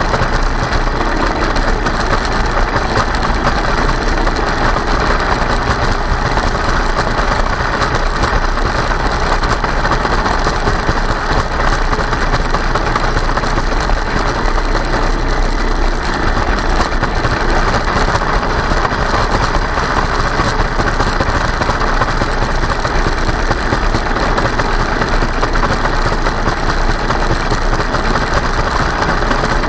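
Kyosho Blizzard RC snowcat's electric motor and tracked drivetrain running steadily, with a constant rattling clatter. The owner thinks the clonking and rattling may just be ice chunks in the tracks, but suspects something needs looking at.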